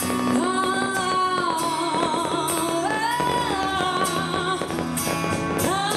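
A woman singing long, wavering held notes with a live band accompanying her, cymbals keeping time.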